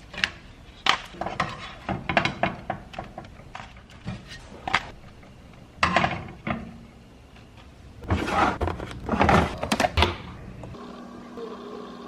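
Kitchen handling noises: a string of knocks and thunks, with a denser stretch of clatter about eight seconds in.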